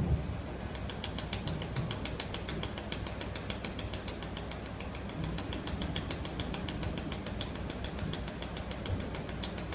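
Pulsed YAG laser welder firing in a steady train of sharp ticks, about six a second, starting just under a second in, as it automatically welds stainless steel. A thin high whine runs underneath.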